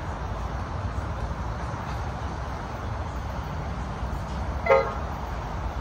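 An approaching train sounds one short horn toot about three-quarters of the way through, over a steady low rumble.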